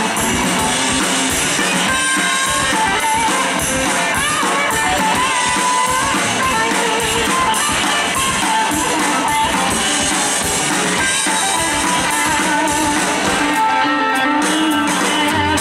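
A rock band playing live through a PA: electric guitars, with a lead guitar line bending and wavering in pitch, over bass guitar and drums.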